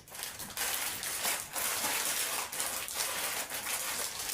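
Rustling and crinkling of a plastic-wrapped pack of synthetic braiding hair being handled.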